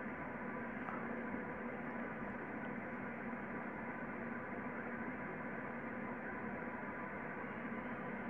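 A steady hum and hiss with a few faint held tones underneath, unchanging throughout; no distinct sounds of handling stand out.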